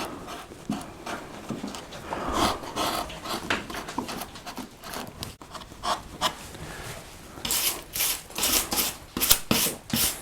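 Flat carving gouge paring wood in short, repeated scraping strokes, levelling the floor of a recess. The strokes come in a quicker run about two-thirds of the way through.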